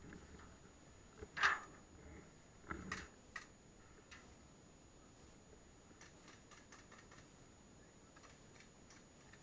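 A few sharp clicks and taps against a quiet background: the loudest about a second and a half in, a quick cluster of three around three seconds in, then fainter ticks a few seconds later.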